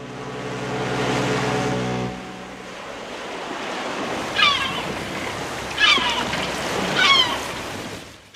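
Sea waves washing in shallow water, a steady rush, with a low hum that stops about two seconds in. Three short cries, each sliding down in pitch, come about a second and a half apart.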